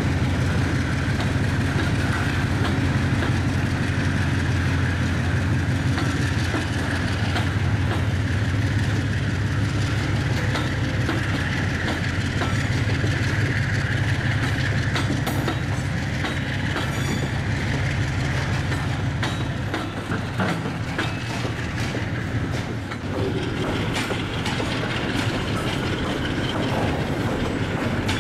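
A freight train's hopper wagons rolling past close by: a heavy steady rumble and rattle of steel wheels on rail, with clickety-clack over the rail joints. About two-thirds of the way through, the deep rumble drops away and a lighter rattle with occasional sharp clanks continues.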